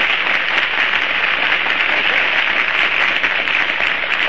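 Studio audience applauding steadily, on an old 1938 radio broadcast recording with a narrow, muffled sound.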